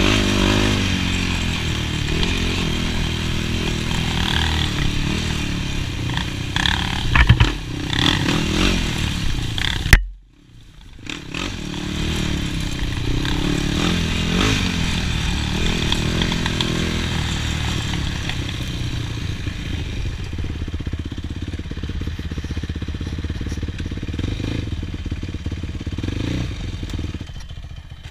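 Yamaha YFZ450 quad's single-cylinder four-stroke engine running and revving under throttle on a trail ride, with rattling from the machine. About ten seconds in the sound cuts off abruptly and builds back up, and near the end the engine drops to a lower, quieter running as the quad stops.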